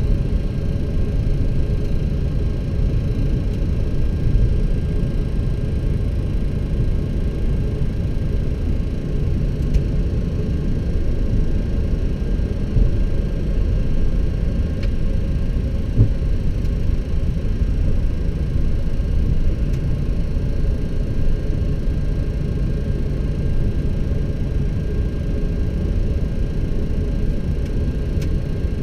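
Steady low rumble inside a Boeing 737-800 cockpit as it taxis with its CFM56 engines at idle, with faint steady high tones running through it.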